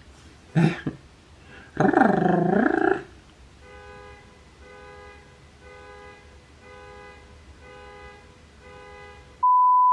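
A loud, low, drawn-out vocal sound that sinks and rises in pitch, then a quiet electronic chime repeating about once a second, six times. Near the end a loud steady single-pitch beep of about a second, the kind used to censor a word.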